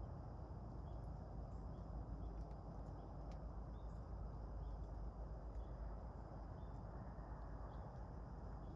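Quiet woodland ambience: a steady low rumble with a faint, steady high hum, and brief faint chirps, likely from small birds, scattered through it.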